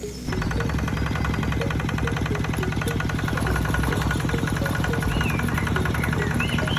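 A small engine, apparently the mini tractor's, starts up and runs steadily at idle with a fast, even knocking rhythm. A few short chirps sound over it near the end.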